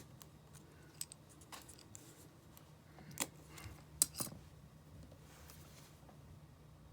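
Scattered small clicks and taps of a screwdriver and tiny parts being handled on an opened iPhone 5 while it is reassembled. There are about six sharp clicks in the first four and a half seconds, the loudest about four seconds in, over a faint steady hum.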